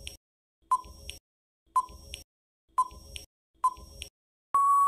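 Quiz countdown-timer sound effect: a short electronic tick-beep about once a second, then a longer steady beep starting near the end that marks time running out.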